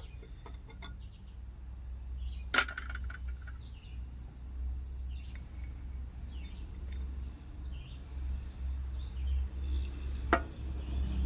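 Two sharp metallic clinks about eight seconds apart, tools or parts knocking during mower repair work, over birds chirping and a steady low rumble.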